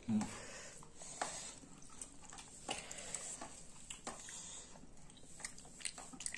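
Faint eating sounds: fingers working biryani rice on a steel plate, with scattered light clicks and soft chewing. A short voiced hum comes right at the start.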